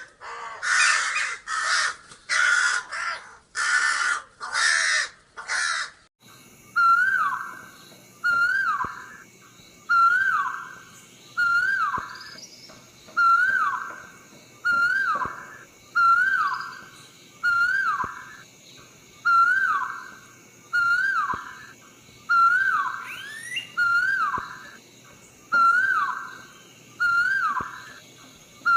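Bird calls: six harsh, cawing calls in the first six seconds, then a different bird repeating a short whistled note that rises and then drops, about once every second and a half, with fainter high-pitched chirps behind it.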